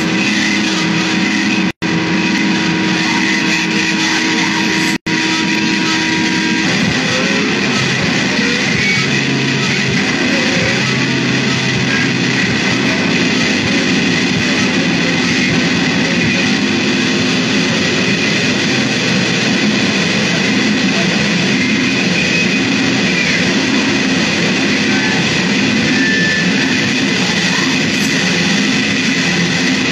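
Loud, dense noise music: a steady wall of distorted, guitar-like sound with held tones underneath. The sound cuts out for an instant twice in the first five seconds.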